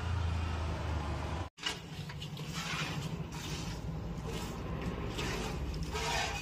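A low steady engine hum of a vehicle, cut off sharply, followed by hand-milking of a Murrah buffalo: milk squirting into a steel pail in repeated hissing spurts.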